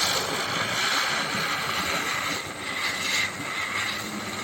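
Ground spinner firecracker (chakri) spinning as it burns, giving off a steady hissing whirr.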